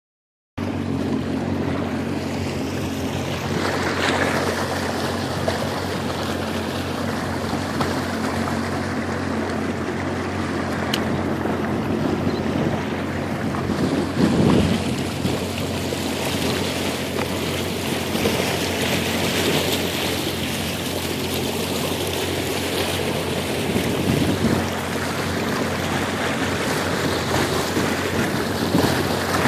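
Jet ski engine running steadily at an even pitch, with water and wind noise over it.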